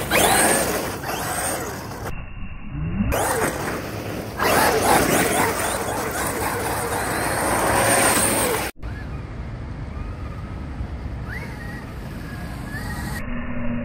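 Traxxas XRT RC monster truck driving hard over loose dirt, its 8S brushless electric motor whining up in pitch as it speeds up and its tyres scrabbling over the ground. The sound breaks off sharply about nine seconds in and comes back quieter.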